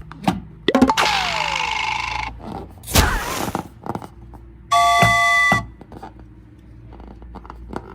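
A string of separate sound effects: a hiss lasting over a second with a falling whistle in it, a sharp knock, then a steady chime-like tone held for about a second.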